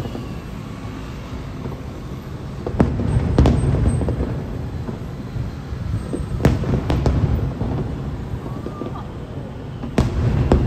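Aerial firework shells bursting: deep booms over a continuous low rumble, with sharp cracks in pairs about three seconds in, around six and a half to seven seconds, and near the end.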